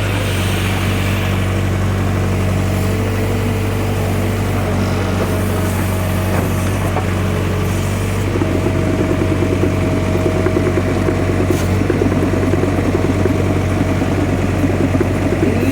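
Backhoe's diesel engine running steadily, growing louder and rougher about halfway through.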